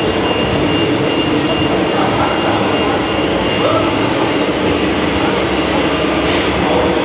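Steady din of a crowd talking, with a mechanical rumble beneath it and a high electronic beep repeating about twice a second.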